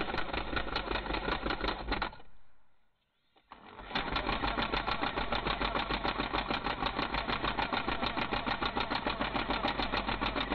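Cordless impact driver hammering a composite deck screw into a composite deck board without pre-drilling: a fast, even rattle of impacts. It stops for about a second and a half around two seconds in, then starts again and runs on.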